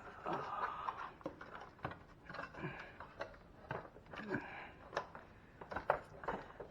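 Hard plastic clicking, knocking and scraping as a refrigerator's ice maker unit is worked loose from its housing: a string of irregular sharp clicks with short rubbing sounds between them.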